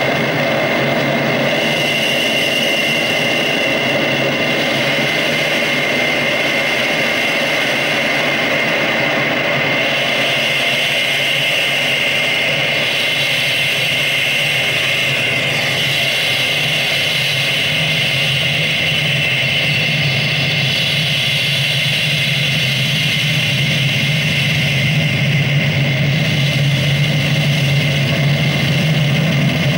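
Live electronic soundtrack played from a laptop: a dense, unbroken drone of steady high tones over a low hum, the low hum growing stronger in the second half and the whole getting slightly louder near the end.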